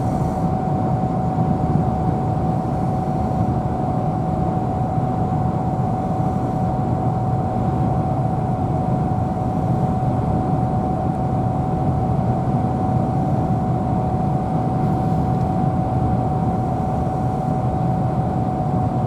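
Steady road and engine noise heard from inside a moving car, an even rumble with a thin constant tone above it.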